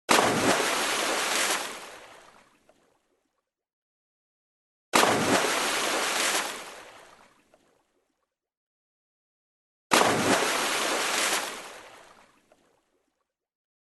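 Water splash played three times, about five seconds apart. Each starts suddenly with a splash, carries on as a rush of spray for about a second and a half, then fades out.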